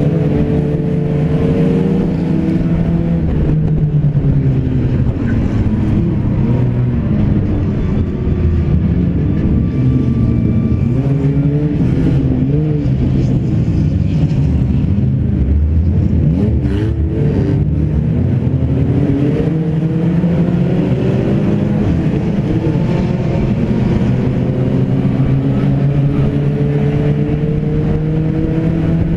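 Race car's engine running hard and revving up and down as it races, heard from inside the stripped cabin. A few short knocks or rattles come from the body about halfway through.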